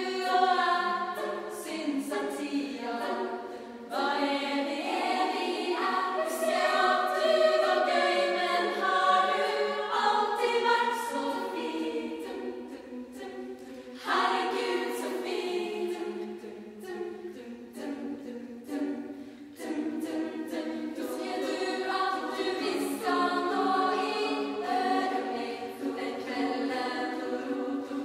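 Student choir singing in several voice parts. It dips to a softer passage and comes back in loudly about halfway through.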